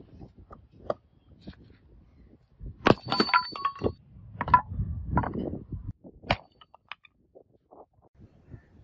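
Steel axe blade striking old bricks: several sharp hits with cracking and crumbling brick, the first and loudest about three seconds in followed by a brief metallic ring from the blade.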